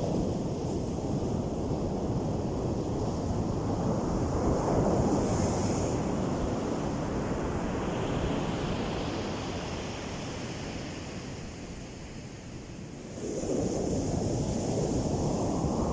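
Heavy surf breaking and washing up a sandy beach, with wind buffeting the microphone. The wash swells about five seconds in, eases off, then surges again sharply about thirteen seconds in as the next wave breaks.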